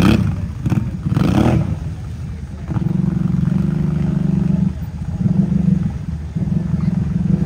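ATV engine revving in bursts, each held for a second or two, with the machine sunk nearly to the seat in muddy water, its tires churning the water. Two short rushes of splashing noise come near the start.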